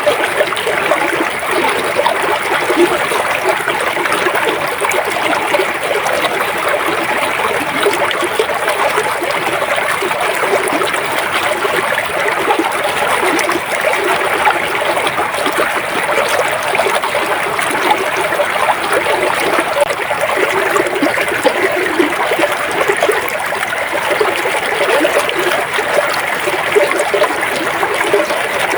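River water flowing and trickling steadily over stones, with small splashes and gurgles.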